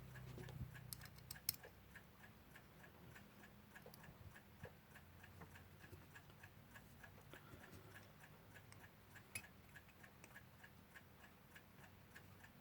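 Faint, even ticking of a running mechanical clock, several ticks a second, with a few sharp clicks from small clock parts being handled.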